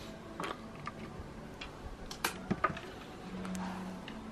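Light, irregular clicks and ticks of metal multimeter test probes tapping against the pins of a spindle's connector plug, with the sharpest clicks a little past two seconds in.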